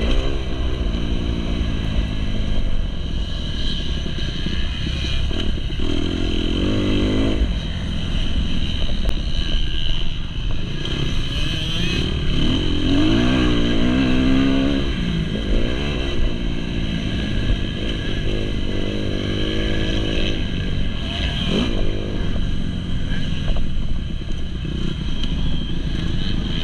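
2019 Kawasaki KX250's four-stroke single-cylinder engine being ridden hard on a motocross track, its pitch repeatedly rising under throttle and dropping off between gear changes and corners.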